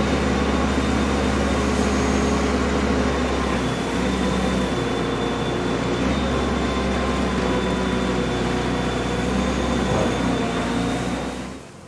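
JCB telehandler's diesel engine running steadily under load as it works its bucket and grab, with a thin high whine above the engine note. The engine note dips about four seconds in and picks up again a couple of seconds later.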